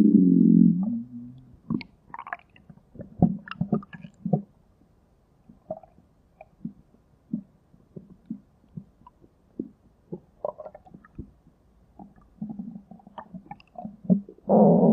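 Human stomach growling: a loud, pitched growl that fades out about a second in, then a scatter of short gurgles, and a low rumble building again near the end.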